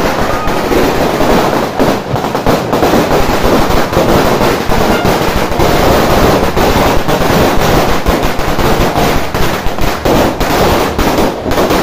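Firecrackers exploding in a dense, rapid, continuous barrage of loud cracks and bangs, easing off slightly near the end.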